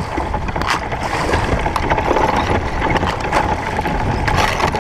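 Sea kayak pushing through floating river ice: chunks of ice knocking and scraping against the hull amid splashing water, many short knocks over a steady wash of noise.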